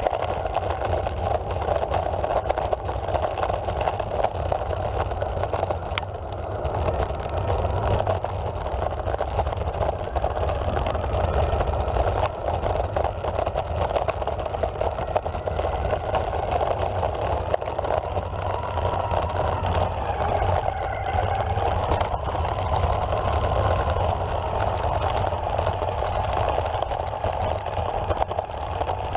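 Electric skateboard riding offroad: its wheels rumble steadily over dirt and grass. A faint motor whine rises and falls in pitch with speed.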